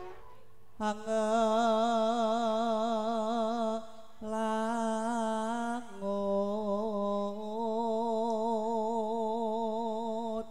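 Solo male voice singing a Javanese gamelan vocal line, unaccompanied, in long held notes with a steady wavering vibrato. It comes in three phrases, with short breaths about four and six seconds in.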